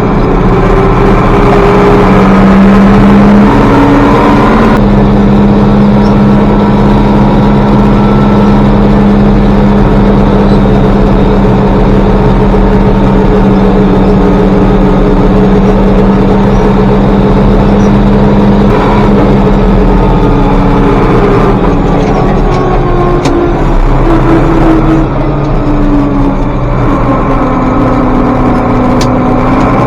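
Tractor engine running steadily under load while pulling a grain wagon. Its pitch steps up briefly about four seconds in, then sags and rises again near the end.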